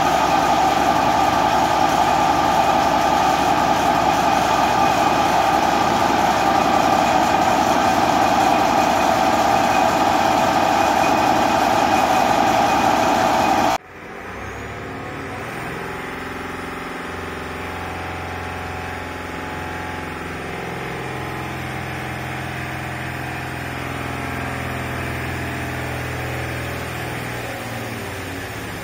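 Mercedes-Benz 366T six-cylinder turbo-diesel from a Unimog 416 running steadily under load on an engine dynamometer. About 14 seconds in, the sound drops suddenly to a quieter, duller, muffled drone, heard from behind the dyno control-room window.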